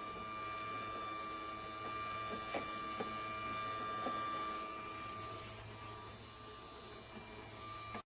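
Compressor ice cream maker running: a steady mechanical hum with a thin whine over it and a few light clicks, cutting off suddenly at the end.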